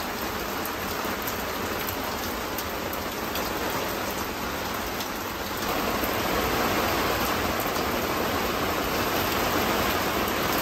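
Heavy rain falling on a canvas boat bimini overhead, a dense steady hiss of drops that grows louder about halfway through as the downpour gets heavier.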